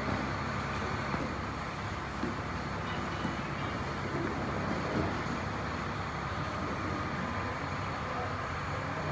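Large coach bus idling steadily, an even low engine drone with no distinct events.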